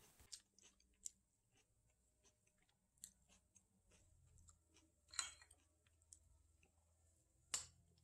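Near silence, broken by a few faint, scattered clicks; the two loudest come about five seconds in and near the end.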